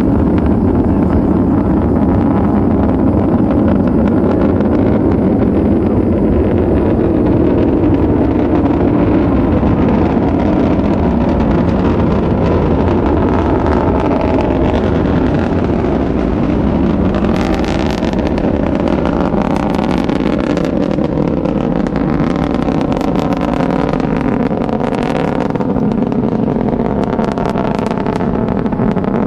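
Atlas IIAS rocket climbing after liftoff: the steady, loud, deep roar of its main engines and strap-on solid rocket boosters, with sharp crackling that sets in about halfway through.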